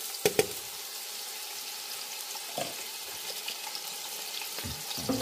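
Diced red onions frying in a pot of hot palm oil, a steady sizzling hiss. A few sharp knocks sound over it: two close together just after the start, and more later.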